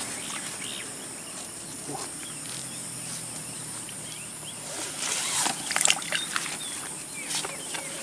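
Outdoor ambience of a steady high insect drone with scattered short bird chirps. About five seconds in there is a burst of louder, sharper noise lasting roughly a second.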